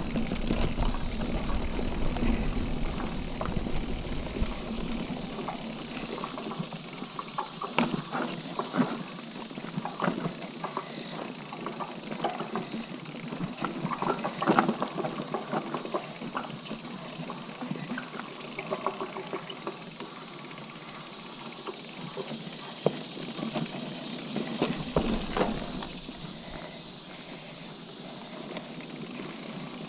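Liv Hail mountain bike riding a dirt singletrack: tyre noise on packed dirt with frequent clicks and knocks as the bike rattles over roots and rocks. Wind rumbles on the microphone for the first few seconds and again briefly about 25 seconds in.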